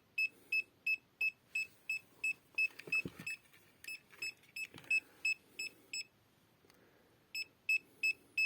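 R&D RD630 EMF meter's alarm beeper sounding rapid, evenly spaced high beeps, about three a second, signalling that the field from the unshielded 12 V AC/DC adapter is over its alarm threshold. The beeping stops about six seconds in and resumes a little over a second later.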